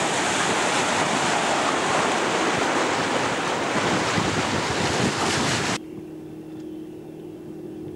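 Wind buffeting the camcorder microphone on the open deck of a sailing yacht at sea, a loud, steady rush of noise that cuts off abruptly about six seconds in. After it comes a much quieter steady low hum.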